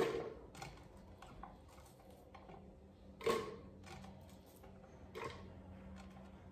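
Chopped onion pieces dropped by hand into a plastic blender jar and gathered off a cutting board: light knocks and ticks, with three sharper knocks, at the start, about three seconds in and about five seconds in.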